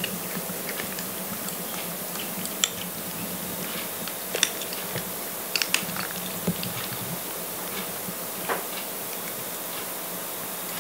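Scattered small clicks and taps at irregular intervals, a few sharper than the rest, over a steady low hiss.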